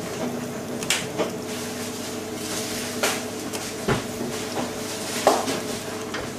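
Working commercial kitchen noise: a steady hum with scattered knocks and clatter of pots, utensils and cupboard doors, about five sharp ones.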